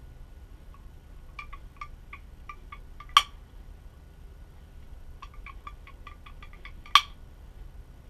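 Light metallic ticks from a bicycle fork's aluminium damper rod being handled and worked at its tip. Two runs of quick ticks each end in a single sharp, louder click, about three seconds in and again about seven seconds in.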